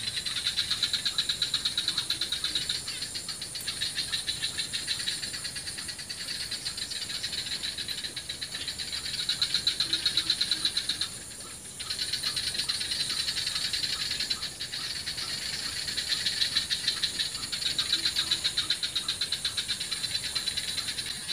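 Insects chirring in a dense, fast pulsing chorus, dropping away briefly about eleven seconds in.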